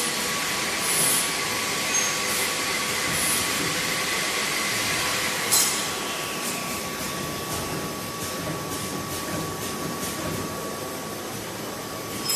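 S-JY6090PV tilted-arm flat-bed screen printer with vacuum table running: a steady mechanical whir with a thin steady whine, short hisses about one and three seconds in, and a sharp clack about halfway through, after which it runs a little quieter.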